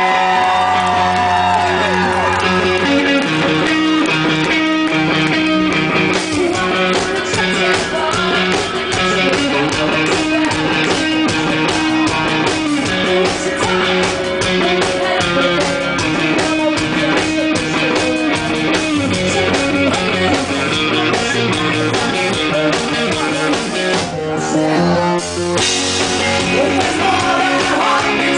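Rock music with guitar, a steady drum beat and singing; about 24 seconds in the band briefly thins out, then comes back in full.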